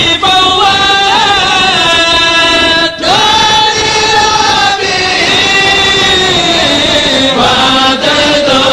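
A kourel chant group singing an Arabic religious poem (khassaid) together in unison, voices holding long, ornamented notes, with a new phrase starting about three seconds in.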